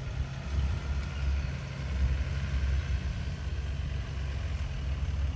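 Engine of a 6x6 off-road truck running at low speed, a steady low rumble.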